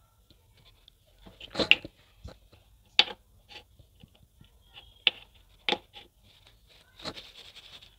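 Homemade pink slime being squeezed and pressed into a small clear plastic cup, giving short sharp sticky pops and clicks. The loudest comes about one and a half seconds in, with others at about three, five and seven seconds and a brief crackle after the last.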